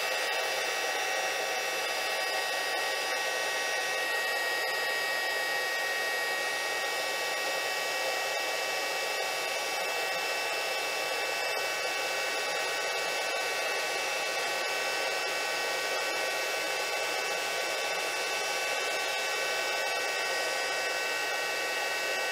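Mini heat gun blowing hot air in a steady rush with a constant fan whine, shrinking heat-shrink tubing over a crimped wire terminal.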